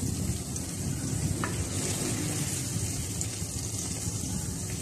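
Stuffed tinda sizzling steadily in hot oil in a clay kadhai, while a wooden spoon lifts them out, with one light knock of the spoon about a second and a half in.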